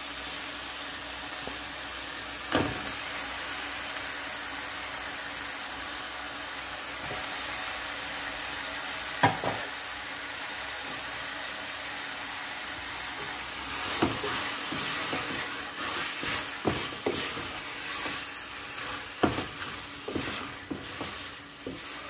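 Onion-tomato masala sizzling steadily in a kadai as raw chicken pieces are dropped in with a few sharp knocks. From about two-thirds of the way through, a silicone spatula stirs the chicken through the masala in quick, uneven scraping strokes.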